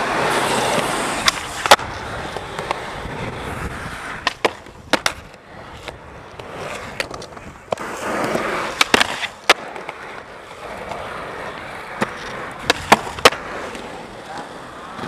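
Skateboard wheels rolling on concrete, with sharp clacks in pairs about half a second apart as tricks are popped and landed.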